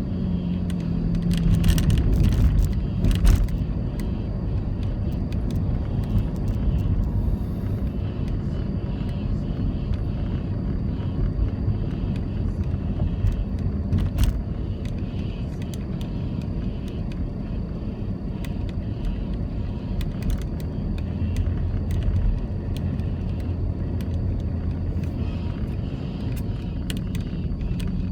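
Car driving on city roads: steady low engine and tyre rumble, with a few sharp knocks, the loudest about three seconds in.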